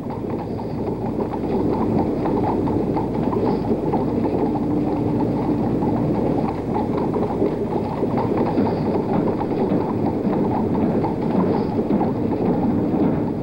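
Horses' hooves clip-clopping and marching footsteps of a funeral procession escorting a horse-drawn caisson, a dense, dull patter of footfalls in an old broadcast recording.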